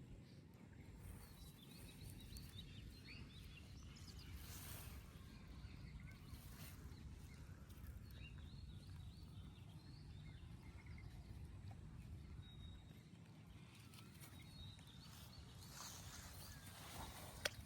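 Quiet outdoor ambience: a low steady background noise with faint, scattered bird chirps throughout, a few soft rustles, and a sharp click near the end.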